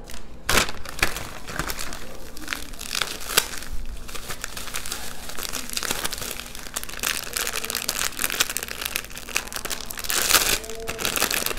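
Bubble wrap and a clear plastic bag crinkling and rustling in irregular bursts as hands unwrap and handle a packed bundle.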